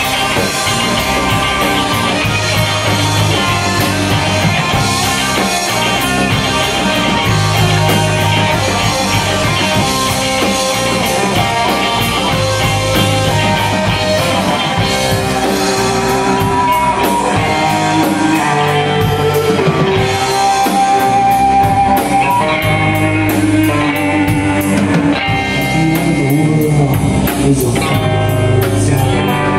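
A rock band playing live: electric guitars, electric bass and drum kit, loud and continuous.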